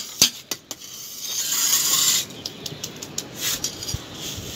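A small trowel scraping cement and sand residue across a floor. It starts with a few sharp ticks, then one long rasping scrape about a second in, followed by shorter scrapes and taps.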